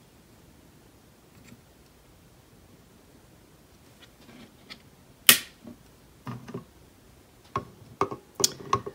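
Handling of a microscope and a phone held to its eyepiece: a sharp click about five seconds in, then a few softer taps and knocks near the end.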